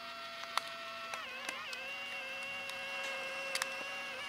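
Fujifilm Instax Mini 9 eject motor whirring as it drives the black film cover out of the top slot, the first ejection after a new film pack is loaded. A steady whine that drops slightly in pitch and wavers about a second in, then holds steady, with a few faint clicks.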